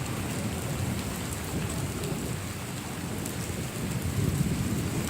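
Steady heavy rain with a low rumble of thunder underneath, the rumble swelling a little near the end.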